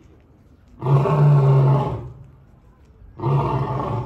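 Adult male African lion roaring: two deep calls of about a second each, about two seconds apart, part of a roaring bout.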